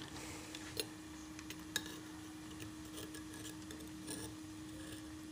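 A pot of rice and cassava leaves cooking with oil over a gas burner: faint scattered ticks and crackles over a steady hum, with two sharper clicks about one and two seconds in.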